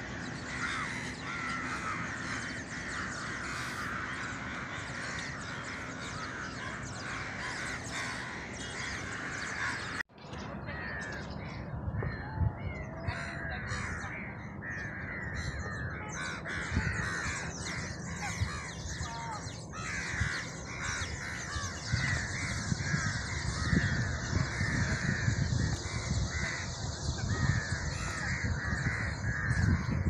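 Dense, continuous chattering of a huge flock of small birds calling all at once as they wheel in a murmuration, cut off for a moment about ten seconds in. A low rumble grows louder in the second half.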